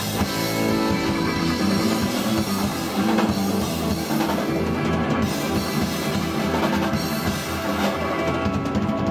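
Live blues-rock band playing loud through an instrumental passage with no singing: a drum kit with steady cymbal wash, over electric guitar.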